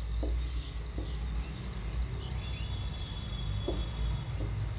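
Marker writing on a whiteboard, with a few soft taps and strokes, over a steady low hum and a run of quick, high chirps.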